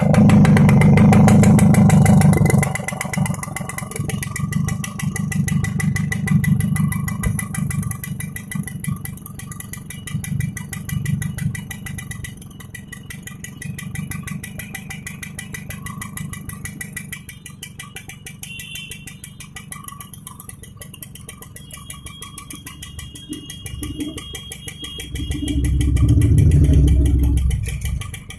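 TVS XL Super Heavy Duty moped's single-cylinder engine revved for about two seconds, then running at a lower, slightly uneven speed during carburettor tuning. It revs up again near the end.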